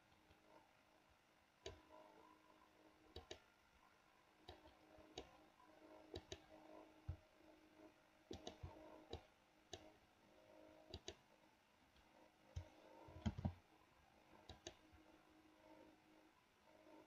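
Faint computer mouse clicks, a dozen or so scattered irregularly and several in quick pairs, over a faint steady hum. One louder low knock comes about three-quarters of the way through.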